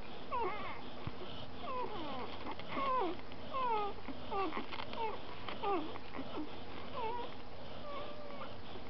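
Three-day-old Eurasier–Samoyed cross puppies squeaking and whining while they suckle. About a dozen short, high calls slide up and down in pitch, thinning out near the end.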